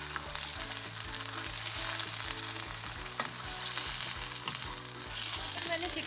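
Pieces of raw chicken sizzling in hot oil in a karahi on high flame, with a steady hiss, while a wooden spatula stirs them and scrapes and knocks against the pan now and then.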